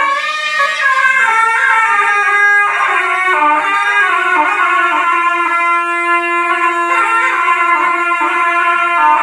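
Zurlas, a pair of loud wooden double-reed shawms, playing a melody with a bright, nasal tone. The melody moves in quick steps, with a longer held note around the middle.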